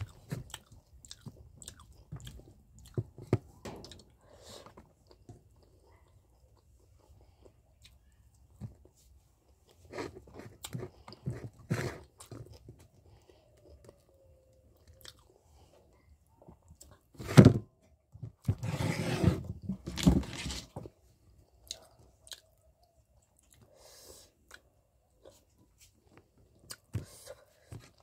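A person chewing and eating fish curry with rice by hand: mouth sounds and crunching come in scattered bursts with quiet gaps between, with one sharp click a little past the middle.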